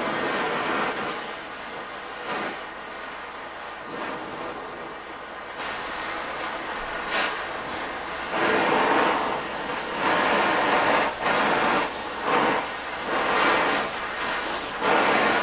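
Oxy-acetylene torch flame hissing as it heats a steel pry-bar blank red-hot to melt silver solder under a Tantung tip. The hiss grows louder and uneven from about eight seconds in.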